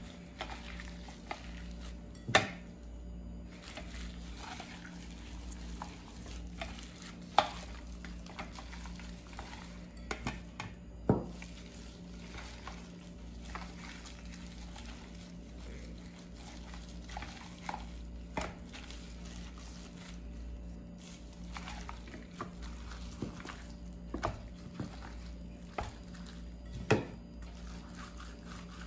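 Gloved hand rubbing and squelching spice marinade into raw chicken pieces in a stainless steel tray, with a few sharp knocks of the chicken and hand against the metal tray, over a steady low hum.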